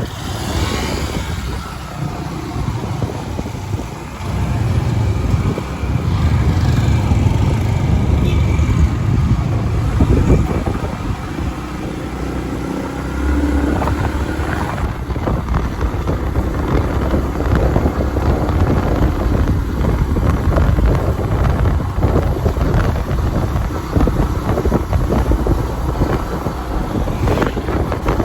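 A motor engine running steadily, with a low rumble that grows louder about four seconds in and changes character about halfway through.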